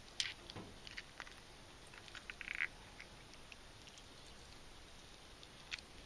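Faint wet squishing and small clicks as fingers pull the innards out of a slit-open yellowfin goby. The sounds come as scattered short ticks, with a quick cluster about two and a half seconds in and one more near the end.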